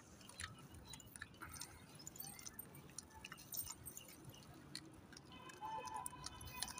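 Faint scattered clicks and crunching of monkeys picking grain from a hand and chewing it. About five seconds in, a thin steady high tone with a couple of short chirp-like notes joins in.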